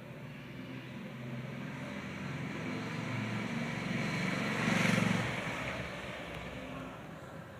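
A road vehicle passing by: its sound builds steadily, is loudest about five seconds in, then fades away.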